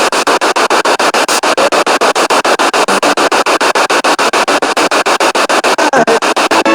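Spirit box radio sweeping rapidly through stations: loud static chopped about ten times a second, with brief clipped fragments of radio sound between the hiss.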